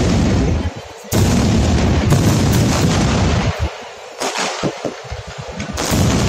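Fireworks exploding in a dense barrage: loud booms that run into one another, with sharp fresh bursts about a second in, just past four seconds, and again near the end.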